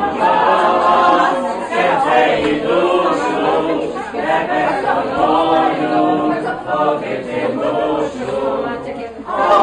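A group of people singing a song together, unaccompanied, their voices holding long notes.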